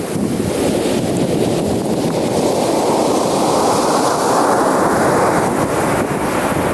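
Ocean surf on a beach: a wave rushing in, growing louder and brighter over the first few seconds before easing, with wind buffeting the microphone.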